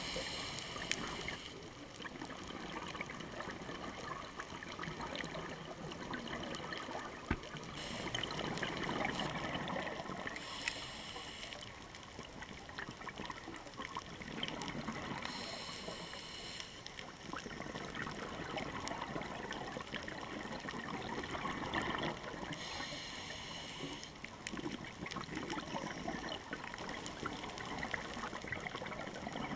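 Scuba diver breathing slowly through a regulator underwater: a few hissing inhalations, several seconds apart, each with a gush of bubbling exhaust, over a constant watery wash.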